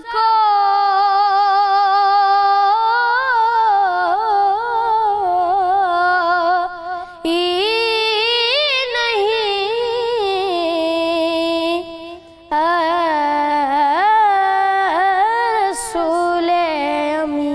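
A young boy's unaccompanied voice singing an Urdu naat (devotional praise poem), drawing out long, high, wavering held notes with ornamented turns. He pauses briefly for breath about seven seconds in and again about twelve seconds in.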